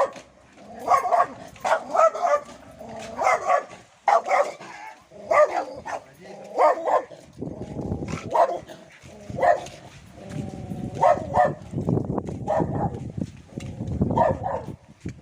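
A dog barking repeatedly, about a dozen single barks roughly a second apart. A low rushing noise joins in from about halfway through.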